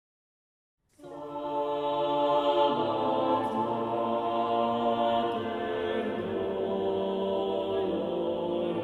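A choir singing sacred music in slow, sustained chords, coming in about a second in and moving to new chords every couple of seconds.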